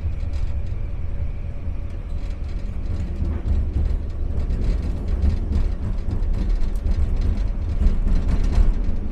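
SkyTrain car running along the track, heard from inside the car: a steady low rumble with frequent clicks and rattles.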